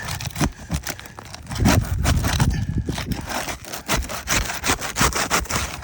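A roof snake shingle-removal bar scraping and prying under asphalt shingles to break the sealant bond, in a rapid, uneven run of rough scraping strokes. The shingles are tearing instead of releasing, a sign that they are not repairable.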